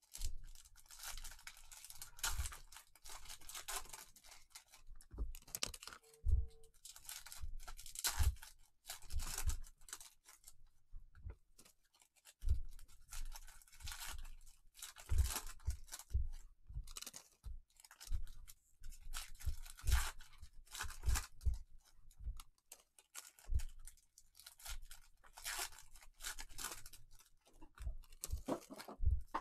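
Foil trading-card pack wrappers being torn open and crinkled by gloved hands. Cards are slid and handled, with irregular soft thumps against the table and a short lull about halfway through.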